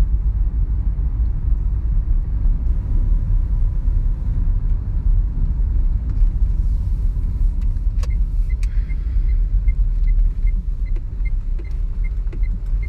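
Steady low rumble inside a car's cabin as it drives slowly over a rough dirt and gravel road, with engine and tyre noise. From about two-thirds of the way in, a light, regular ticking comes in at about two or three a second, along with a few sharp knocks.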